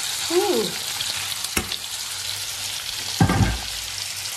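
Trout and white asparagus sizzling steadily in butter and olive oil in two frying pans. A sharp click about a second and a half in and a louder thump about three seconds in.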